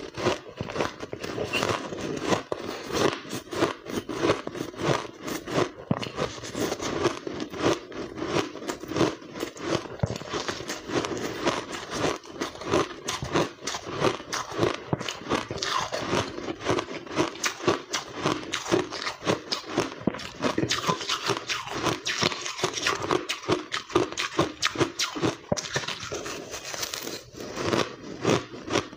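Close-miked mouth biting and chewing blended white ice: a dense, unbroken run of rapid crunches.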